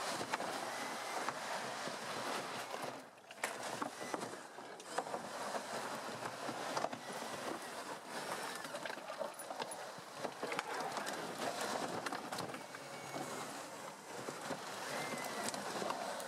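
Rubber tracks of a small robotic tracked vehicle grinding over snow and brush. Frequent sharp snaps and cracks come from twigs and branches under the tracks, and the noise eases briefly about three seconds in.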